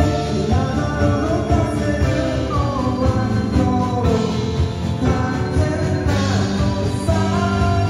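Live pop-rock band playing: drums, bass guitar, electric guitar and keyboards, with a male lead vocal singing over them.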